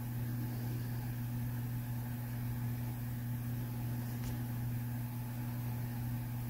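A steady low hum with a faint hiss under it, unchanging throughout.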